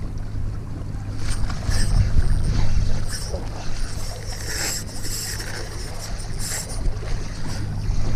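A boat engine running steadily with a low drone, with short bursts of water splashing over it.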